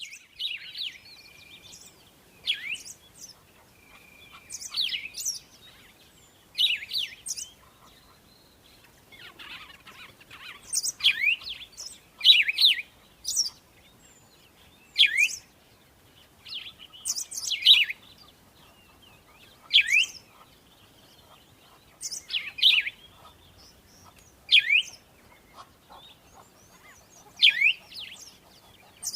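Birdsong: short chirping phrases of quick downward-sweeping notes, repeated every two to three seconds with quiet gaps between.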